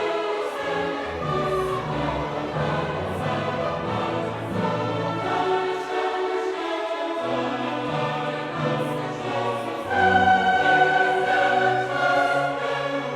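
Choral music with orchestra: a choir sings long held notes over strings, swelling louder about ten seconds in.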